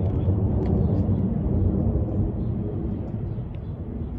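Jet airliner's engines passing overhead as a low, steady rumble. It is loudest through the middle and fades as the aircraft moves away.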